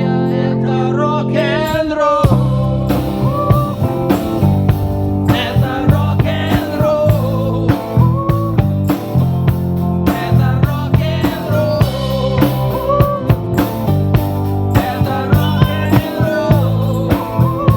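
Rock song with a singing voice over guitars; a full drum kit with bass drum and snare comes in about two seconds in and keeps a steady beat.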